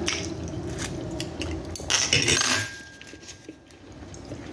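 Metal spoon scraping and clicking on a paper plate while the last of a meal is eaten, with the loudest scrape about two seconds in.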